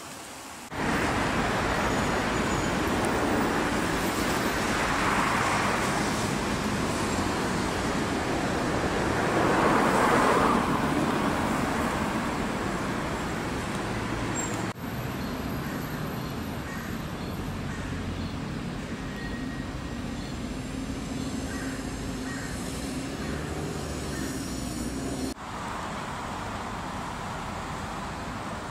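Steady hiss of road traffic in the rain, swelling twice as vehicles pass, about five and ten seconds in. The sound drops abruptly twice to a quieter, steady traffic rush.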